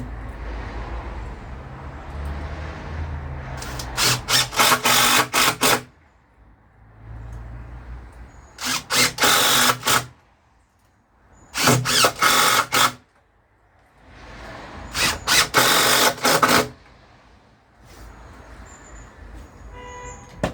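Cordless power drill driving screws to fix door hinges. It runs in four bursts of about one and a half to two seconds each, each a rapid stuttering whirr, with short pauses between them.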